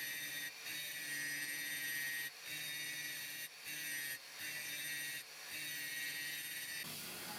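Electric power tool motor running at a steady pitch, dropping out briefly five times. Near the end it gives way to a steady hiss.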